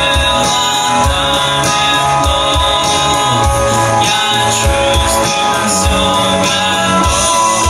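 A live rock band playing an instrumental passage: a hollow-body electric guitar with a harmonica played through the vocal microphone, with held notes and a steady low beat beneath.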